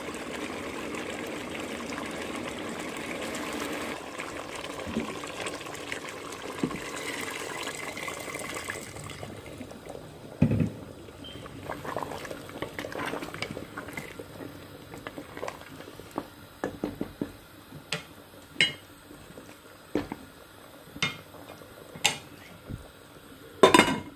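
Water running steadily for about the first nine seconds, then stopping. Metal pots and utensils follow with scattered clinks and knocks: a heavier knock about ten seconds in, then a dozen or so sharp clinks, the loudest pair near the end.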